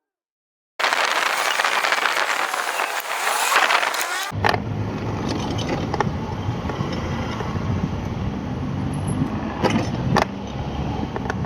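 A burst of loud hiss for about three seconds, then a vehicle engine running steadily, with a few sharp clicks over it.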